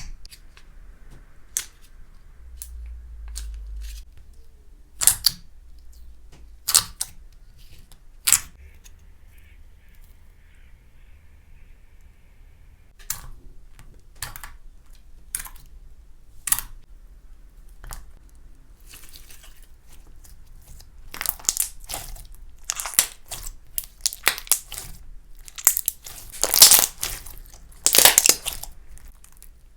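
Clear slime being squeezed and poked by hand, giving sharp separate pops and clicks as air pockets burst. Near the end these thicken into a run of dense crackling.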